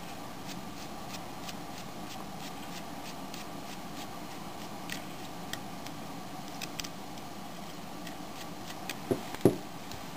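Tiny screws on the top of a Creative Zen Micro MP3 player being unscrewed with a number 00 Phillips precision screwdriver: faint, small ticks of metal on metal repeating over a steady background noise. A couple of louder knocks follow about nine seconds in, as the plastic player is handled.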